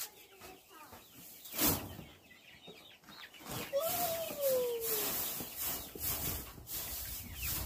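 Chickens clucking, with straw rustling and a loud thump about a second and a half in. About halfway through comes one long call that rises a little, then falls.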